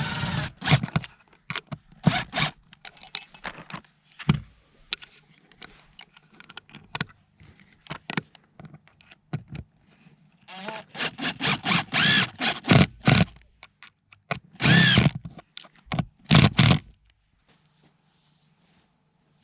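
Cordless power driver running in short bursts, driving screws through metal pipe straps into a wooden raised bed, among knocks and scraping of handled pipe and wood. The busiest burst of driving comes in the second half and stops a couple of seconds before the end.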